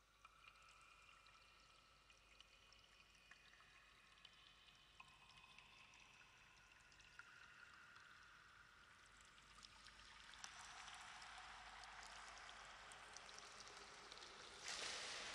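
Faint trickling, pouring water with scattered drips and a few soft held tones, opening an ambient piece; the water hiss swells about ten seconds in and again just before the end.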